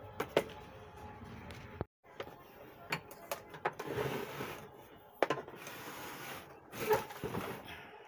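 Handling noise from an opened metal amplifier chassis and a circuit board being shifted about on a wooden workbench: scattered sharp clicks and knocks with rustling scrapes between them.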